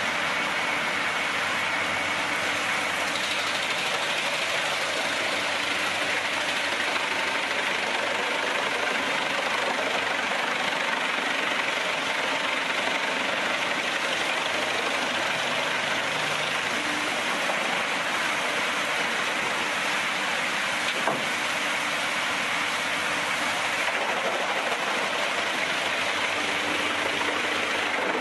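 Industrial wood chipper running: a loud, steady mechanical noise with a single sharp knock about two-thirds of the way through.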